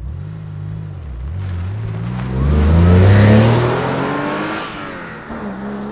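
Porsche Carrera engine: a quick rev that rises and falls, then hard acceleration climbing in pitch to its loudest about three seconds in, then falling in pitch and fading as the car passes by.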